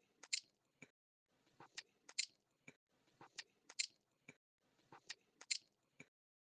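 Faint crunching clicks, a short cluster of them repeated in the same pattern four times, about every 1.6 seconds, like a looped sound effect.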